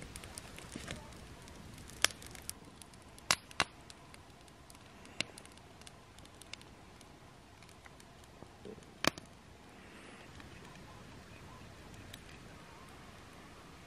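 Wood campfire crackling quietly, with a few sharp pops at irregular intervals, the loudest about nine seconds in.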